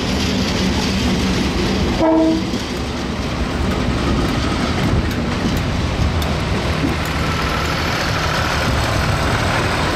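Diesel freight train passing close by: the locomotive's engine running and container wagons rolling past on the rails, with a short horn blast about two seconds in.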